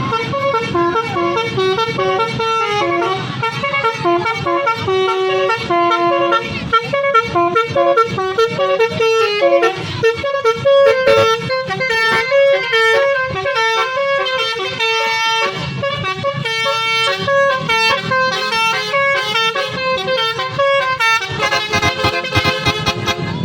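Basuri multi-tone musical air horn on a bus playing a 'telolet' tune: a run of sustained horn notes stepping up and down in pitch, with the notes changing faster near the end.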